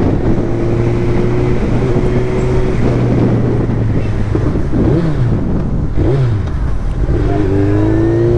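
Suzuki Hayabusa's inline-four with a loud aftermarket exhaust running under way in traffic, heard from the rider's seat with wind noise. The engine note holds steady, dips and picks up briefly a couple of times in the middle, then climbs as the bike accelerates near the end.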